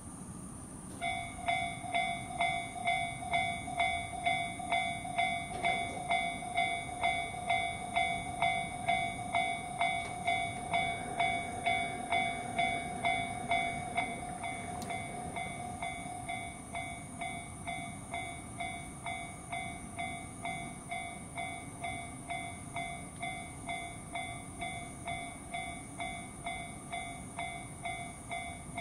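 Japanese railroad crossing warning bell starts about a second in and dings steadily at about two strokes a second, a little quieter from about halfway through.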